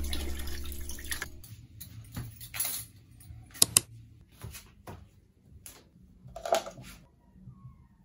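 Kitchen tap running into a stainless-steel sink while a sponge is rinsed under it, the water dying away about a second and a half in. Afterwards come a few scattered small clicks and knocks, two sharp ones in quick succession near the middle and a short clatter later.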